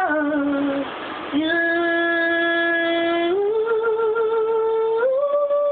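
A young girl singing solo in long held notes, with a short breath about a second in, then a sustained note that steps up in pitch twice.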